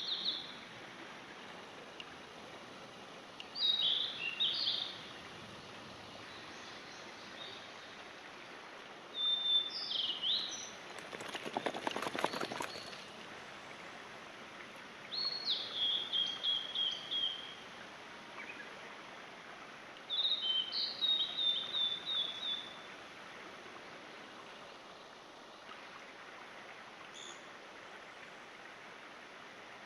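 A songbird singing the same short phrase over and over, about every five or six seconds: a few high notes, then a quick run of repeated notes. About twelve seconds in, a brief rustling, scraping noise.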